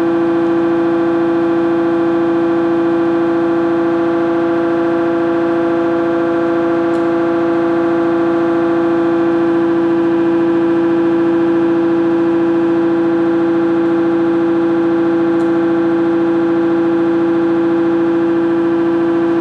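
A ReGen-X pulsed DC stepper motor running, giving a loud, steady buzzing whine at one unchanging pitch with many overtones.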